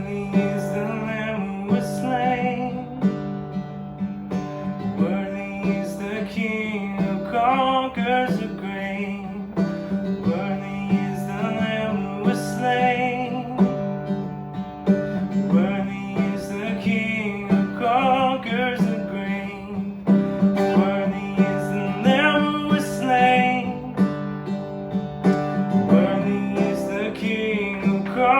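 Worship song: acoustic guitar strumming steadily under a singer's wavering melody.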